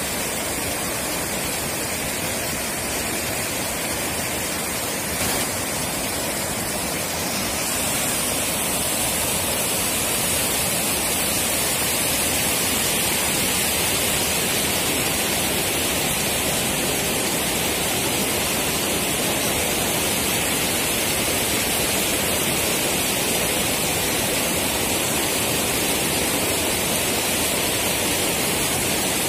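Floodwater rushing and churning in white waves over a low dam overflow: a steady, dense rush of water that gets a little louder and hissier about seven seconds in.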